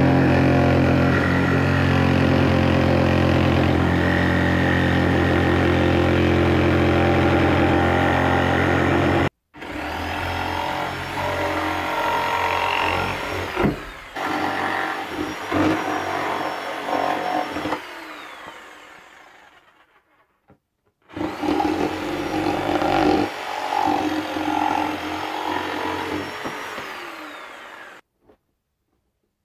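DeWalt jigsaw running and cutting through plywood along a curved line, a steady motor sound with the blade rasping through the wood. It runs in several stretches that break off suddenly, and it stops shortly before the end.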